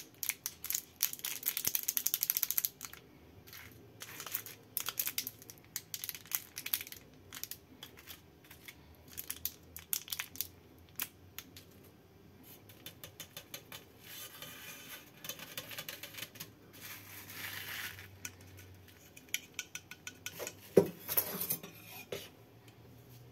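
Cellophane candy wrapper crinkling and tearing open, then scattered light taps and clicks as candies and marshmallows are handled. A sharp knock near the end, as the drink can is turned over and set down.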